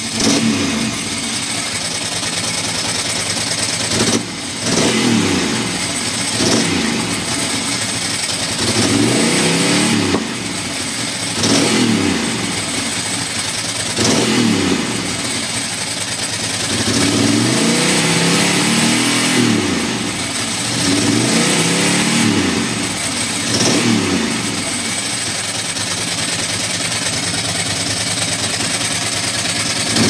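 Ducati Monster M900 ie's air-cooled V-twin engine running and revved in repeated throttle blips, each rising and falling in pitch, with an uneven, loud misfire. The owner finds it happens when the bike is cold and wet and suspects the wiring loom to the headlight.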